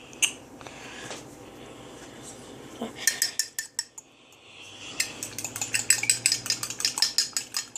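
Fork whisking an egg, milk and cinnamon mixture in a mug: a few scattered clinks at first, then from about five seconds in the tines clicking rapidly and evenly against the mug's sides.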